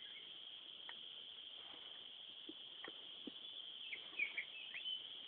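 Steady high-pitched insect drone in dry hill forest, with a few short chirps near the end and scattered faint ticks.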